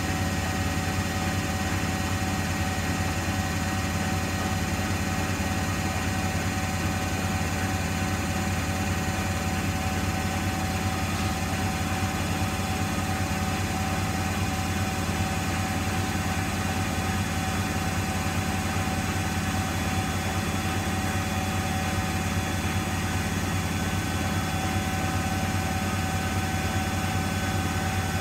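Miele front-loading washing machine spinning its drum at a steady speed with an off-balance load: a constant low rumble with a steady motor whine on top, holding even throughout.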